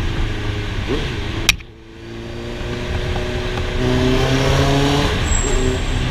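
Honda CB650's inline-four engine running with wind noise while riding. About a second and a half in there is a sharp click and the sound drops away briefly, then the engine note climbs as the bike accelerates.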